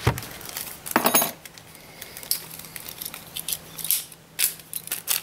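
Small parts being handled: light clicks and a brief rustle about a second in, as a new carburetor gasket is worked loose with a metal pick.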